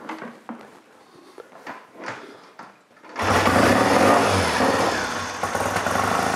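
Triumph Daytona 500 parallel-twin motorcycle engine kick-started on tickled carburettors. It catches on the first kick about three seconds in, revs up, then settles into steady running. Before it fires there are a few faint clicks and knocks.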